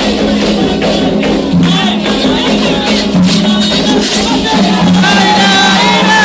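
Candomblé ritual music: percussion with rattles and shakers keeps a steady beat while a group of voices sings over it.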